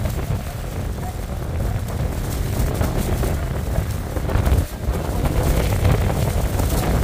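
Strong wind buffeting the microphone: a heavy, uneven low rumble that dips briefly about four and a half seconds in.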